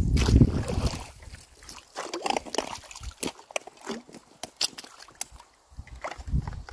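Long-handled rake dragging sticks and debris through shallow water at a beaver dam: sloshing and splashing with many short, sharp clicks and snaps of wood. A low rumble fills the first second.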